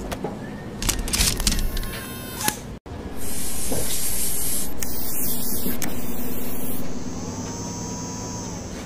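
Spray nozzle hissing steadily as it sprays paint. The hiss starts suddenly a little after three seconds in and lasts about three and a half seconds. Before it come a few mechanical clicks and clatter, and near the end a short machine whir rises and falls.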